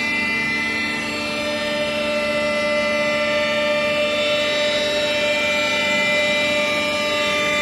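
Kaeser DBS 220 L industrial blower package running steadily: a continuous machine whine of several fixed tones over a rush of air noise.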